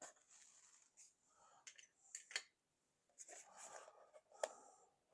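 Faint handling of a razor's box and packaging being opened: rustling, with a few sharp clicks and taps, two close together around two seconds in and one more near the end.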